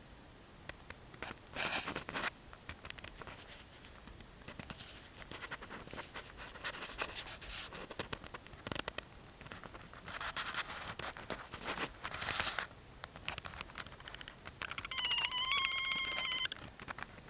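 Bursts of scratching and rustling with scattered clicks. Near the end comes about a second and a half of a rolling, wavering turkey-style call.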